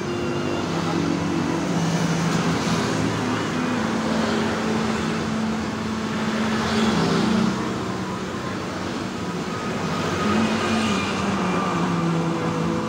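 Street traffic noise: motor vehicle engines running, with a low engine drone that shifts in pitch a few times.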